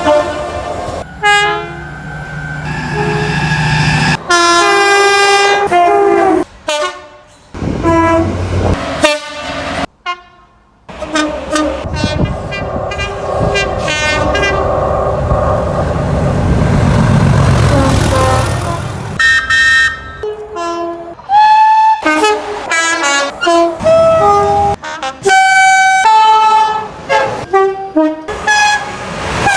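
A rapid string of train horn blasts from different trains, many sounding two notes, spliced together with sudden cuts between clips. In the middle comes a longer stretch of a train running with a low rumble, with a horn over it, and the blasts come thick and fast near the end.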